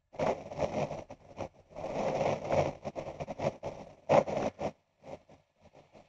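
Gusty wind buffeting the microphone in rough, irregular bursts, which die away near the end.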